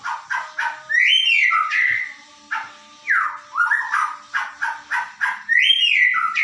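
White-rumped shama (murai batu) singing: a loud, varied run of whistled phrases that slide up and down and follow one another quickly.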